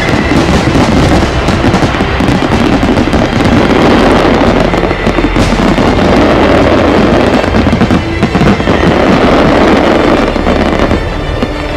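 Aerial firework shells bursting in a dense, continuous barrage of booms and crackle, the finale of a high-altitude fireworks show, easing slightly near the end.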